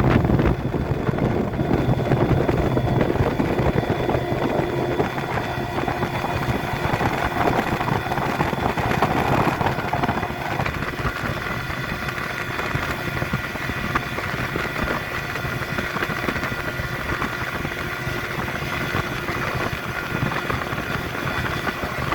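Hidea 25 hp outboard motor running steadily, easing off a little after about ten seconds.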